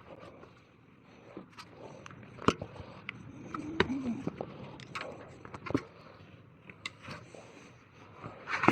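Irregular clicks and short scrapes of plastic tyre levers and a bicycle tyre being worked off the wheel rim.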